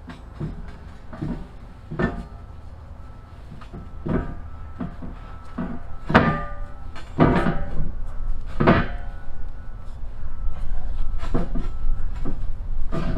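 Steel pallet forks and the fork back plate clanking and knocking together as they are fitted by hand: a dozen or so irregular metal knocks with short ringing, the loudest about six to nine seconds in.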